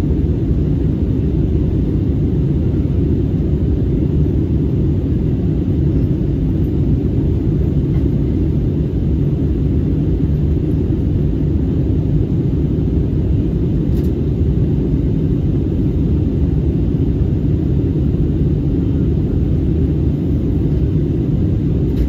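Steady low rumble of a jet airliner's cabin during descent: engine and airflow noise heard from a window seat. A faint click about fourteen seconds in.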